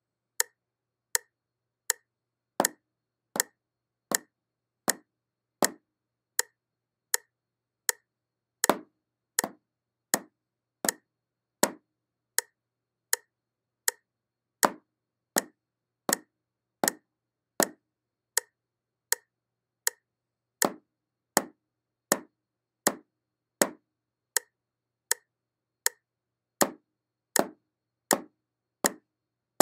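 Metronome ticking steadily at 80 beats per minute, with wooden drumsticks striking a rubber practice pad in time with the clicks, playing the paradiddle sticking (right, left, right, right, then left).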